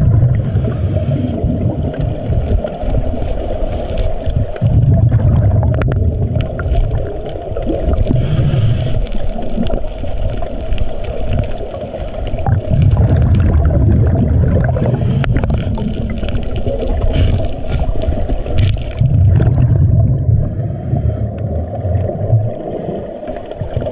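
Underwater sound of a scuba diver breathing through a regulator. The exhaled bubbles give a low gurgling rumble in bursts every few seconds over a steady underwater hiss, with scattered clicks and scrapes.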